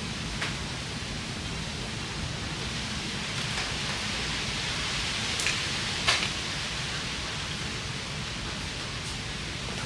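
Steady hiss with a few short, sharp clicks, the loudest two a little past the middle.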